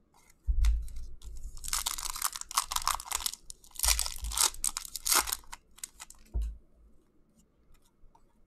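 Thin clear plastic crinkling and crackling as hands handle it around a trading card, in bursts from about two to five seconds in, then a few short crackles. There are a few low bumps from handling.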